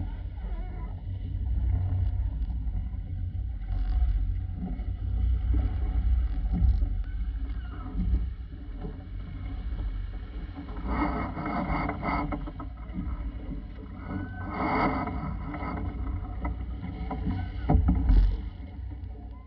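Wind buffeting the microphone in a heavy low rumble, over water rushing and splashing along the hull of a sailboat under way in a chop. Two longer, louder rushes of spray come about 11 and 15 seconds in, and a sharp slap comes near the end.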